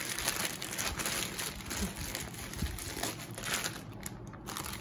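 Pink wrapping crinkling and rustling as hands rummage through it and pull out a small paper-wrapped package.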